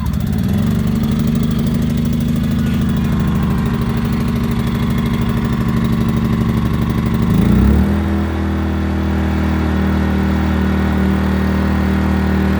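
Predator 2000 inverter generator's small single-cylinder four-stroke engine running steadily just after being pull-started, with eco mode off. About seven seconds in, its note shifts and dips briefly, then settles back to an even run.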